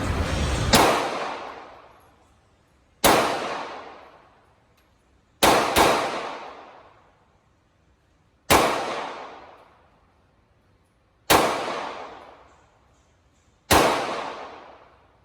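Glock 43 9mm subcompact pistol fired seven times at a slow, uneven pace. Each shot is a sharp crack with an echo that fades over about a second, and two shots come close together about halfway through.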